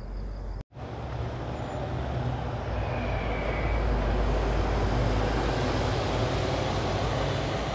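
A city bus driving past close by: engine rumble and tyre noise growing louder over the first few seconds, then holding steady.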